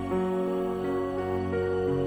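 Background music: soft, slow new-age instrumental with sustained notes.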